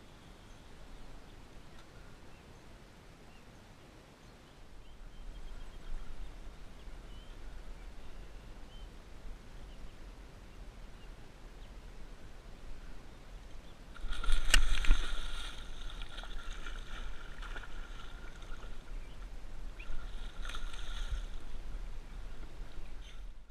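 Water sounds around a kayak with a steady low rumble of wind on the microphone. A louder burst of noise with a sharp click comes about two-thirds of the way through, and a smaller one near the end.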